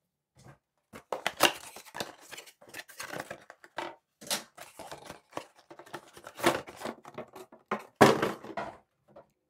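A cardboard mailer box being torn open and unpacked by hand: an irregular run of tearing, rustling and crinkling noises with sharp scrapes and knocks.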